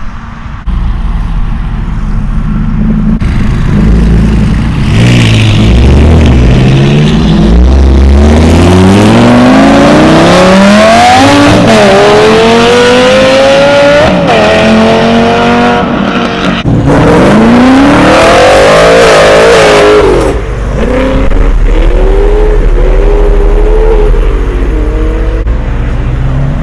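A car engine accelerating hard, its note climbing through several gear changes, then dropping off suddenly after about twenty seconds and settling to a lower, wavering note.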